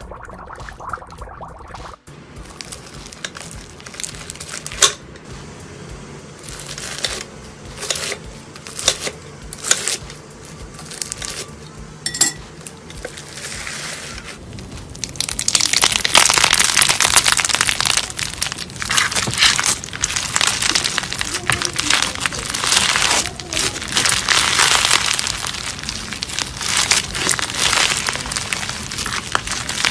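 Crunchy bead-filled slime being squeezed and stretched by hand: scattered crackles and pops for the first half, turning to dense, continuous crackling from about halfway. It opens with a couple of seconds of dry ice bubbling in a bowl of liquid.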